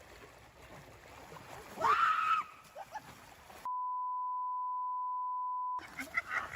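A censor bleep: one steady beep lasting about two seconds, near the middle, that blanks out all other sound. Before it, about two seconds in, comes a short loud high cry.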